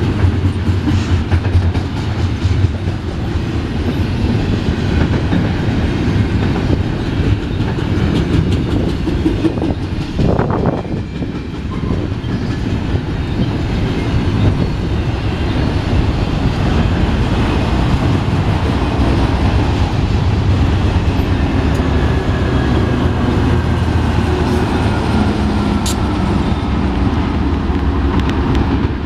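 Double-stack intermodal container train rolling past close by: a steady rumble of steel wheels on rail with a rapid clickety-clack of wheels over rail joints and couplers.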